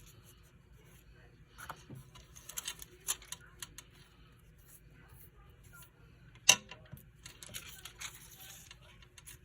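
Paper and foil sheets being handled on a craft table: light rustling and scattered small taps, with one sharp tap about six and a half seconds in.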